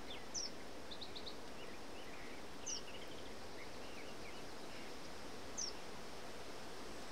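Several birds calling over a steady background of outdoor ambience. A high, falling call repeats three times, a few seconds apart, among scattered shorter chirps, including a quick run of three or four around a second in.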